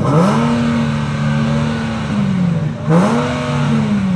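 Nissan Z roadster's V6 engine revved through its exhaust while standing still, twice: the pitch rises and holds for about two seconds, drops back to idle, then rises and holds again for about a second before falling.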